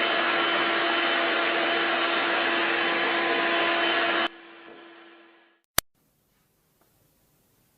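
Vacuum cleaner running steadily with a humming motor, switched off about four seconds in, its motor winding down over a second or so. A sharp click follows, then near silence.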